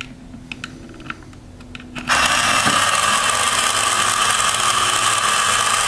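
A few light clicks as the wires are plugged into the battery box, then about two seconds in the battery-powered Smithsonian Motor-Works four-cylinder visible engine model starts up and runs with a loud, steady mechanical whir from its electric motor and plastic moving parts.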